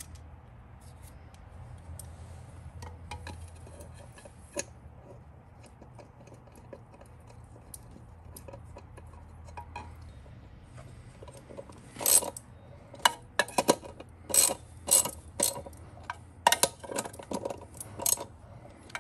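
Socket ratchet clicking as the 13 mm wheel nuts are run down onto a Segway X2 wheel hub. A few faint metal clicks come first, then, about two-thirds of the way through, a run of loud short ratcheting bursts as the nuts are turned on.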